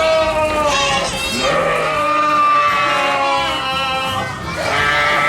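Sheep and lambs bleating, a run of long wavering calls one after another.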